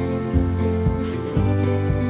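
Music with a steady pulse: sustained melodic notes over a bass line, with a new note struck about twice a second.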